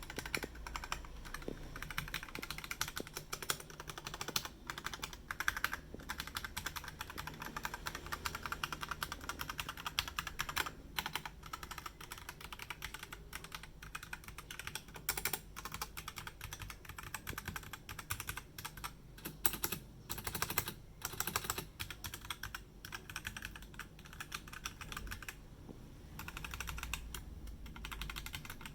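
Mechanical keyboard with linear red switches being typed on rapidly and continuously: a dense, fast patter of keystrokes with a few brief pauses.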